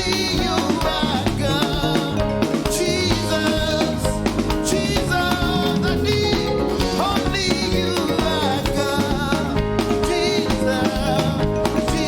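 Praise and worship music: voices singing over a full band with a steady beat.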